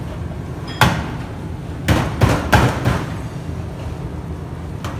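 Kitchen clatter: one sharp knock about a second in, then a quick run of knocks and clatter around two to three seconds in, over a steady low hum.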